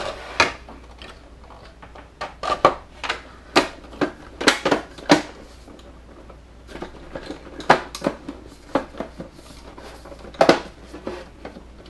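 A SodaStream's plastic housing being handled and turned over on a tabletop: irregular hard plastic clicks, knocks and rattles, with a cluster of sharper knocks a few seconds in and a few more later on.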